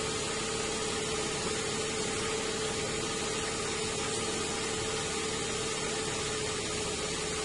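2005 Nissan Maxima's 3.5-litre V6 idling steadily after new ignition coils and spark plugs, an even hum with a constant whine over it.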